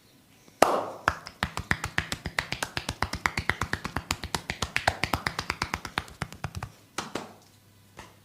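Massage therapist's hands striking the body in rapid percussive massage strokes: a loud first slap about half a second in, then a fast, even run of sharp claps at about seven or eight a second lasting some five seconds, followed by one more slap and a faint tap near the end.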